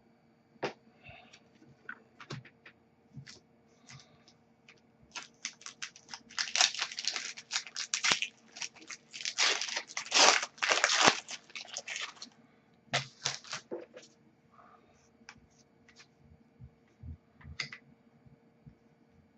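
A hockey card pack's foil wrapper being torn open and crinkled: a dense stretch of crackling in the middle, with scattered light clicks and taps before and after.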